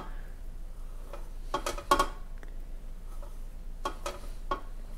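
A kitchen knife scoring raw pork belly on a metal wire rack: several short, sharp clicks and scrapes as the blade strikes the rack and sheet pan beneath the meat.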